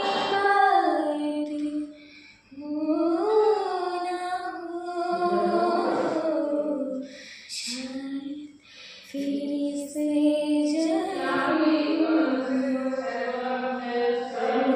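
A woman singing a Hindi song without accompaniment, in held, gliding notes with short breaks between phrases.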